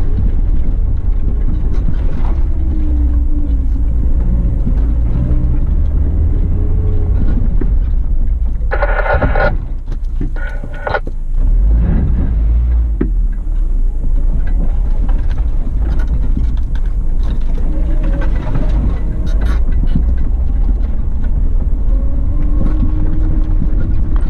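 Suzuki Grand Vitara 2.0's four-cylinder petrol engine pulling the SUV over a rough dirt track, heard from inside the cabin with heavy low rumble from the body and suspension. The engine's pitch rises and falls with the throttle. A short higher-pitched sound comes about nine seconds in.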